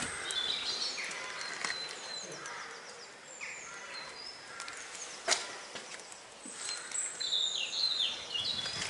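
Birds calling and chirping, short high notes and quick falling phrases, over steady outdoor air noise. A single sharp click or knock about five seconds in is the loudest sound.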